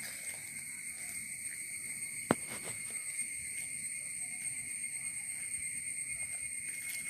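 Steady, high-pitched chorus of insects in vegetation, with a single sharp click a little over two seconds in.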